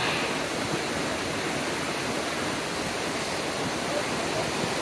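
Steady rushing of a river running through a rocky ravine.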